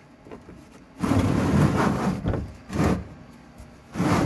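Plastic drain pan sliding and scraping across a concrete floor, in rough bursts: one of over a second starting about a second in, a short one near the middle, and another near the end.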